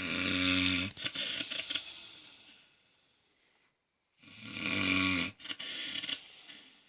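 Snoring: two snores about four seconds apart. Each is a harsh pitched snore of about a second that trails off into a long fading breathy sound.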